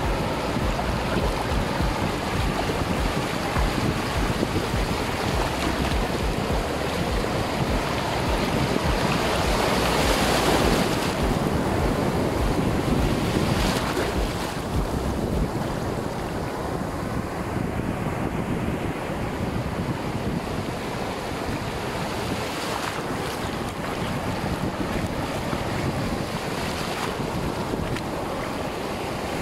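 Ocean surf breaking and foam washing up over the sand in the shallows, one wave swelling louder about a third of the way through, with wind buffeting the microphone as a low rumble.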